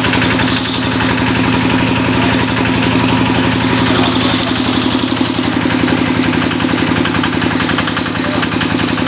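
Small engine of a grass and banana-stem chopping machine running steadily at a constant speed.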